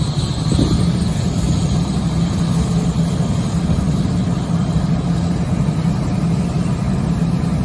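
Fire engine's engine running steadily, a constant low drone under an even rushing hiss.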